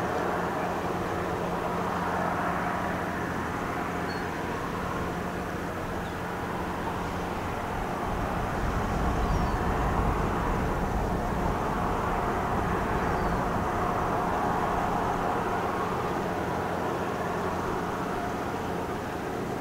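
Steady drone of a passing lake freighter's diesel engines, with several held tones over a rumble. It grows somewhat louder about halfway through.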